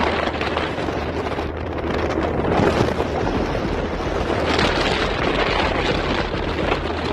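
Wind buffeting the microphone, a steady rushing noise with a constant low hum underneath.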